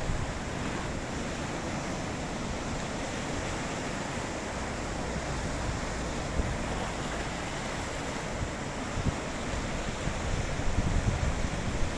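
Small sea waves breaking and washing onto the shore in a steady surf hiss, with wind buffeting the microphone in low rumbles that pick up near the end.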